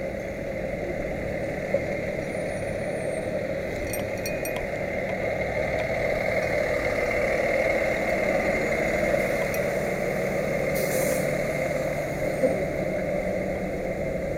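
Steady vehicle engine and road noise, with a few short clicks.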